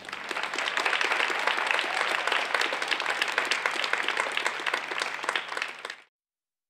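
Audience applauding, a dense patter of many hands clapping, which cuts off suddenly about six seconds in.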